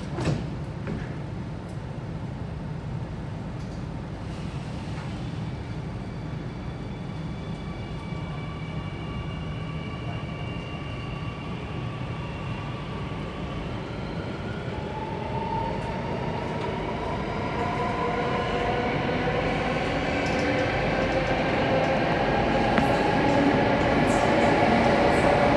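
Alstom Metropolis C830C metro train's doors shut with a knock, then the train pulls away. Its traction motors give a whine in several tones that climbs slowly in pitch and grows louder as the train accelerates.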